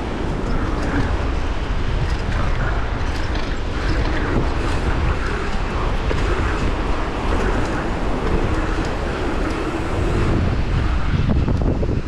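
Mountain bike rolling over an asphalt pump track: steady tyre noise on the sealed surface mixed with wind buffeting the camera microphone, the wind rumble growing louder about ten seconds in.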